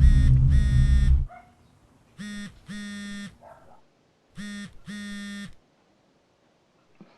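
A loud, deep rumble cuts off suddenly about a second in. Over it and after it, a phone rings with an electronic tone: a short beep and a longer one, repeated three times about two seconds apart.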